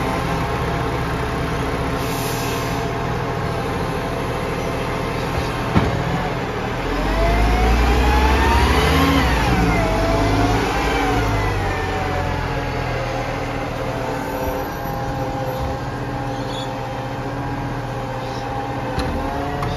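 Iveco side-loader garbage truck's diesel engine running, revving up as it drives close past with its pitch rising and then falling, then settling back to a steady run. A single sharp click sounds about six seconds in.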